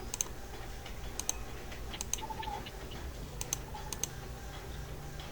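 Scattered light clicks of computer keys, about eight at uneven intervals, over a low steady hum.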